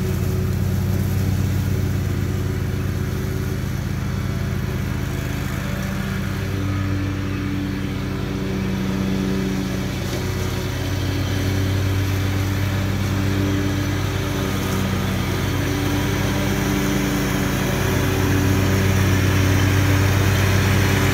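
Exmark Lazer Z zero-turn riding mower with a 60-inch UltraCut deck running steadily while mowing through overgrown weeds and brush, a little louder near the end as it comes closer.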